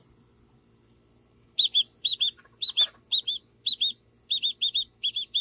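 A bird chirping: short, high two-note chirps, repeated about twice a second, starting about a second and a half in.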